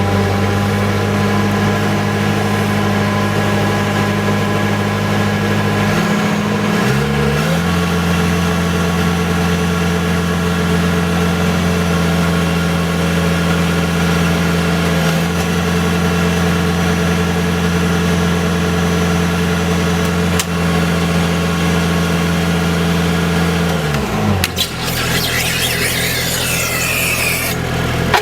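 Skid steer loader's engine running. It revs up about six seconds in and holds steady at high revs, then drops back toward idle near the end.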